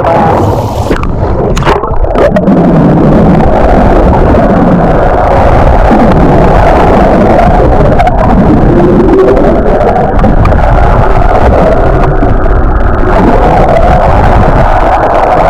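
A boat running under way: a loud, steady rush of engine, water and wind noise on the microphone.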